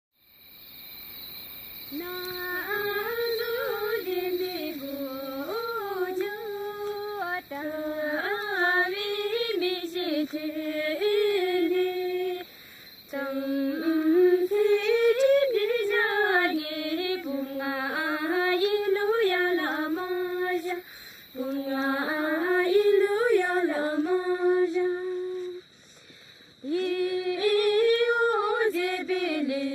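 A woman singing a solo, unaccompanied-sounding melody with much ornamentation, in long phrases separated by short breaths.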